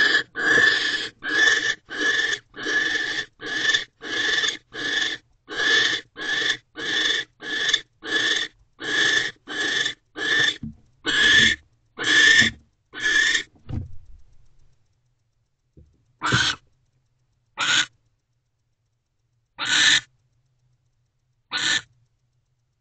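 Barn owl giving long rasping hiss calls, about three every two seconds, then slowing to single calls a second or two apart after about fourteen seconds.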